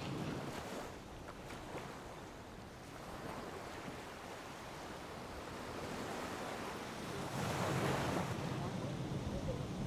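Sea waves washing in, with wind buffeting the microphone; a wave surges louder about eight seconds in.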